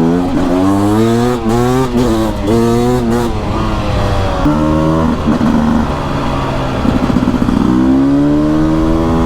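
Beta RR 300 single-cylinder two-stroke enduro engine under load, revving up in several short rising pulls with brief breaks in the first three seconds, steadier around the middle, then one long rising pull near the end.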